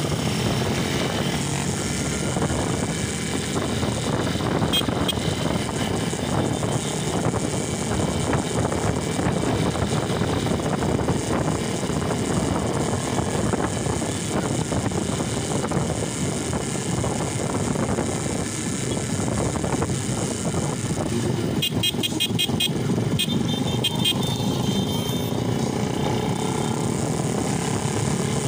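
Motorcycle running on the road, a steady engine and road noise. Near the end comes a brief run of rapid high ticks.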